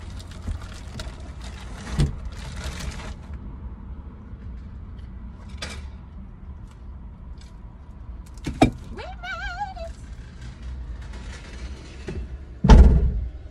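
A long flat-pack furniture box being shoved and slid into a car: scattered knocks, scrapes and rustling, a sharp click about two-thirds of the way in followed by a brief wavering vocal hum, and a heavy thud near the end, the loudest sound.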